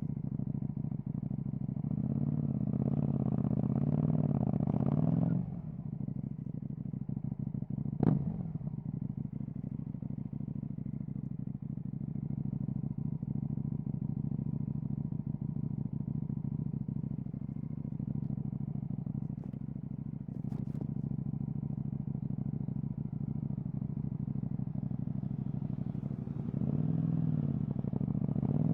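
KTM 790 Duke's parallel-twin engine through an Akrapovic exhaust, running at a steady drone while riding. The throttle opens for a louder spell a couple of seconds in and again near the end. A single sharp knock comes about eight seconds in.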